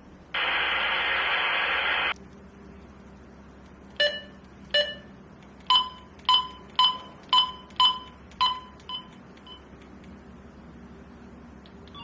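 Retevis RB628 walkie-talkie: a loud burst of radio static lasting under two seconds, then short electronic beeps, two lower ones followed by eight higher ones about half a second apart, the last few fading.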